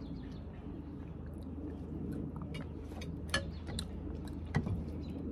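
Mealtime sounds: faint chewing and a couple of sharp clicks of cutlery against dishes, over a steady low hum.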